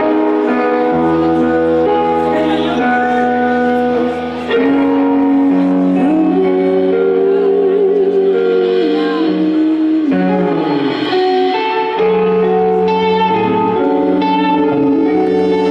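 Live band playing a song: electric guitar, bass guitar and saxophone, with a singing voice.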